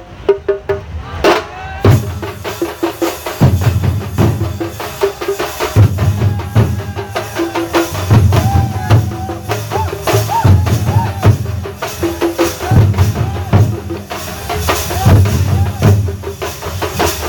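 Thambolam percussion ensemble playing a tune: heavy bass drum strokes and rapid sharp stick hits keep a driving rhythm under a wavering melody line.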